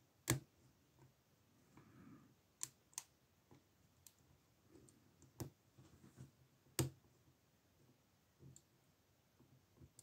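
Quiet, irregular metallic clicks of a lock pick working the pin stack in the keyway of a Lockwood 120/35 brass padlock under tension. A handful of the clicks are sharper, the loudest about a third of a second in and just before seven seconds.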